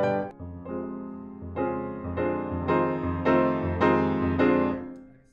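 Bösendorfer grand piano played: full chords struck about twice a second, ringing on, then the last chord dies away shortly before the end.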